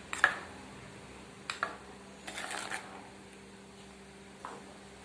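A spoon knocking and scraping against a cooking pot as the finished curry is stirred: a sharp clink about a quarter second in, then a few lighter clinks and a short clatter in the middle.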